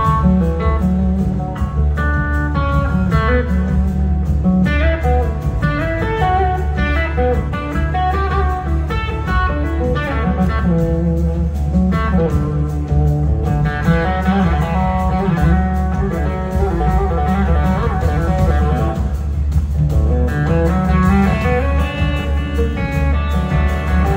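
Live blues-rock band playing, with an electric guitar carrying a lead melody of gliding single-note lines over the bass and drums.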